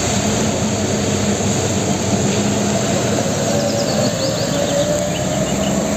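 Diesel fuel tanker truck engine running as the truck drives along a wet road, with its tyres hissing through the water on the tarmac. A faint whine rises a little in pitch about four seconds in.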